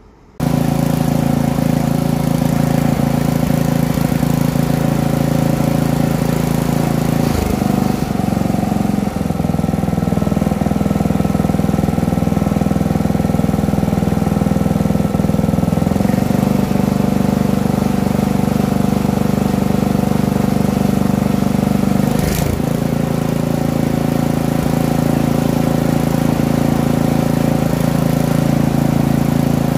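Poulan Pro tiller's small gasoline engine running steadily. It changes speed about eight seconds in and again about sixteen seconds in, with a brief dip about two-thirds of the way through. It now runs properly after a clogged fuel passage in the carburetor, the cause of its high-speed stumbling, was forced open.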